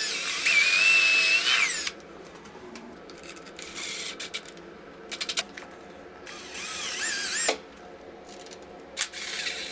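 Cordless drill driving screws through a metal pipe strap into a block of pressure-treated wood: a high motor whine runs for about two seconds and winds down at the end. A second, shorter run of the drill comes about six seconds in, with a few light clicks in between.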